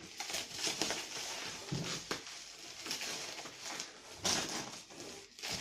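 Packaging being handled, crinkling and rustling in irregular bursts.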